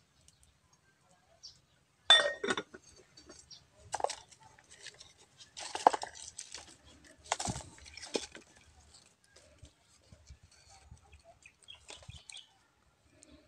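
A chicken calling in a few sharp squawks and clucks, the first and loudest about two seconds in. Faint clinks of firewood sticks being handled come near the end.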